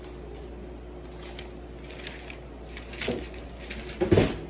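Cardboard shipping box being lifted and moved: a few light knocks, then a louder knock and rustle about three seconds in and the loudest thump and rustle about four seconds in.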